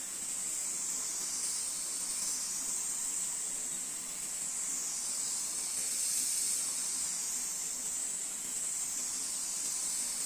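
Compressed-air gravity-feed spray gun hissing steadily as it atomises paint onto a car bonnet, with small swells and dips as the painter sweeps it across the panel.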